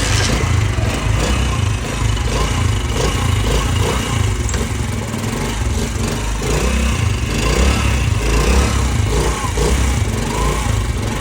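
Motorcycle engine running steadily with its gear noise cured: the small cushion gear in the clutch case has been replaced with a new one.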